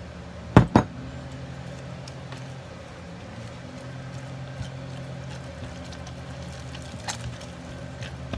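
Hands squeezing and working a stiff, too-thick plaster-of-Paris texture paste in a plastic jug, with two sharp knocks close together about half a second in and another about seven seconds in, over a steady low hum.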